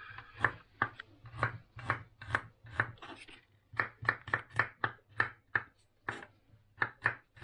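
Knife chopping on a cutting board: sharp, regular strokes about two to three a second, with a short pause a little before the middle.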